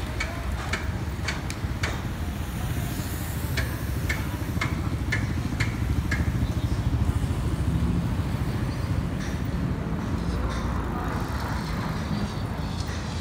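Outdoor road ambience: a steady low rumble of passing traffic, with a run of light, sharp ticks about twice a second in the first half.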